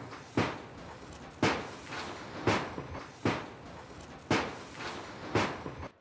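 Six sharp bangs, about one a second, each dying away quickly over a steady hiss.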